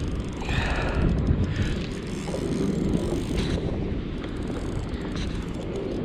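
Wind buffeting the microphone, a steady low rumble with some hiss above it.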